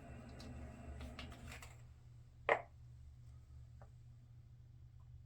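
Faint handling noise with light clicks as a mentholated aftershave splash is applied by hand, then one short sharp slap-like sound about two and a half seconds in, over a low steady hum.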